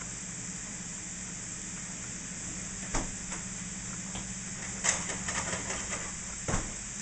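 Stir-fry vegetables sizzling in a skillet on an electric burner, a steady hiss, with a sharp knock about three seconds in, a run of small clatters around five seconds in and another knock near the end as cookware is handled.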